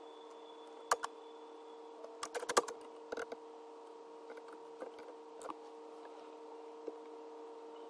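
Computer keyboard keystrokes: sharp clicks, a couple near one second in and quick clusters around two and three seconds in, then a few fainter ones. A steady faint hum runs underneath.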